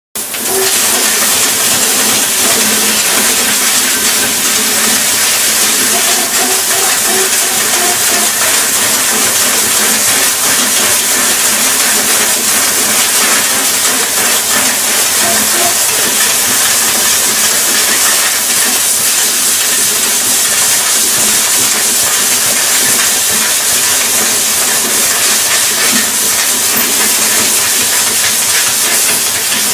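Prima Power laser cutting machine cutting sheet metal: a steady, loud hiss of assist gas jetting from the cutting head's nozzle.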